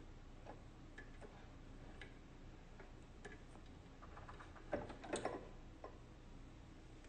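Faint scattered clicks from thread being handled at a Singer sewing machine during threading, with a brief, louder cluster of clicks and rustling about five seconds in.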